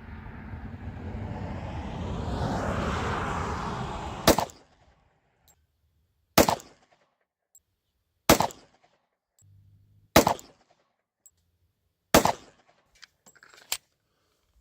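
Five pistol shots from a Glock G29 Gen 5 10mm, fired slowly about two seconds apart for a group. Before the first shot a hiss swells up and cuts off at the shot.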